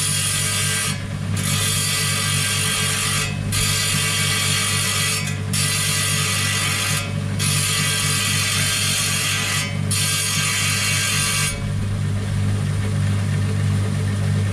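Electric wet stone saw running with a steady motor hum while its blade grinds through a rock nodule, a harsh high grinding broken by five short pauses as the stone is eased off the blade. About eleven and a half seconds in the cutting stops and only the motor hum is left.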